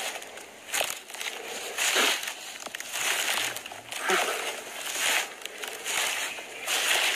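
Footsteps crunching through dry leaf litter and grass, about one step a second.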